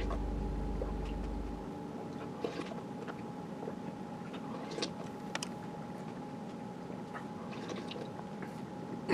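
Acoustic guitar music fading out in the first two seconds, then faint chewing and crunching of a mouthful of cereal, with scattered small clicks over a faint steady hum.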